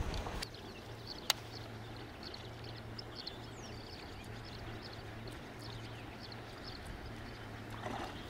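Faint bird chirps over quiet pond ambience, with a single sharp click about a second in. Near the end comes a water splash as a bass strikes a topwater hollow-body lure at the surface.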